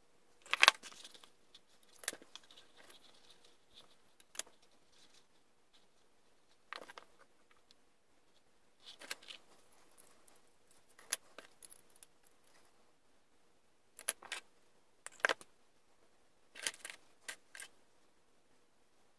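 Stiff metal wire rods and small metal parts clinking and tapping against each other and the bench as they are handled, in scattered short bursts; a sharp clatter about half a second in is the loudest.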